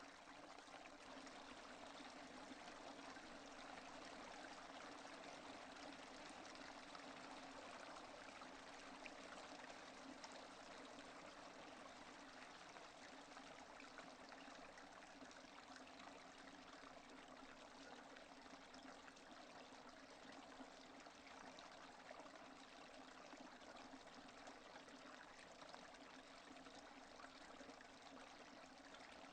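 Steady rain falling: a faint, even hiss of many small drops that does not change.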